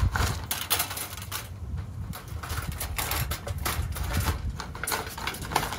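Irregular clicking and rattling of a wire-mesh live trap holding a caught cat, in two spells, over a steady low rumble.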